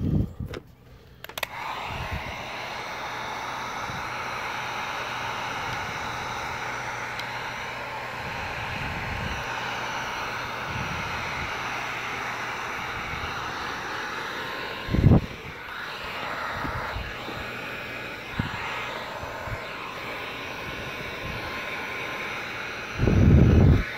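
Electric heat gun blowing steadily, switched on about a second in, heat-shrinking window tint film onto a curved rear window. Two low thumps break in, one about halfway through and a longer one of about a second near the end.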